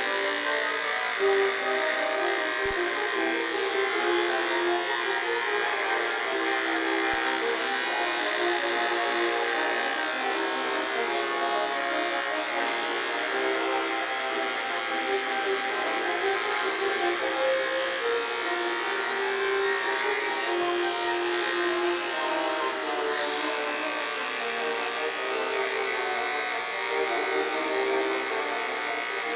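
Electric dog grooming clippers with a #15 blade running steadily as they clip a toy poodle's throat, over slow brass music with long held notes.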